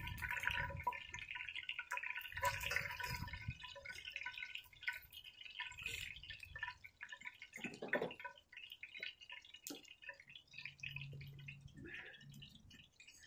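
Hot frying oil in a camp oven crackling and sizzling, a dense patter of fine ticks, with a few dull knocks.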